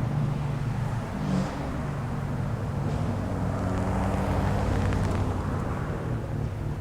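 2004 Pontiac GTO's LS1 V8 running steadily through an SLP Loudmouth II exhaust with no catalytic converters or resonators, with a brief rise about a second in. The owner suspects the exhaust may have a leak.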